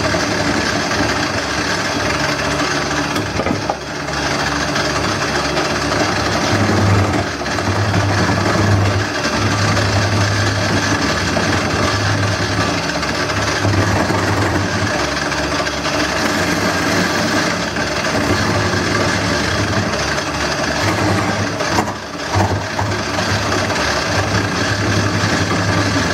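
Wood lathe running with a steady motor hum while a gouge cuts into the spinning wooden bowl blank, giving a continuous scraping, shaving noise. The sound dips briefly twice, about 4 seconds in and near 22 seconds.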